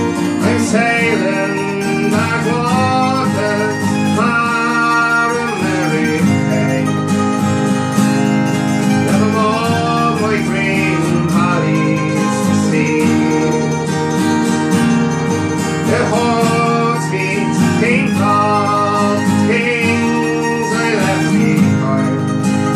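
Acoustic guitar and mandolin playing together, an instrumental passage between the sung verses of a folk song.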